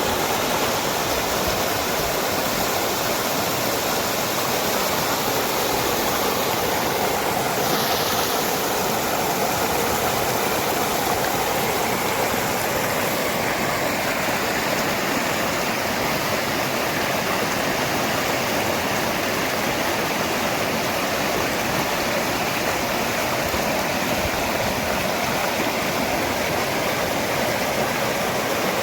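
Waterfall: falling water rushing and splashing in a steady, unbroken roar.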